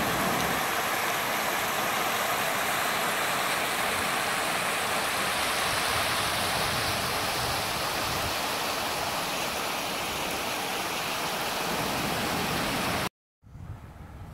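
Steady rush of river water pouring over a low, sloping concrete weir. It cuts off suddenly near the end.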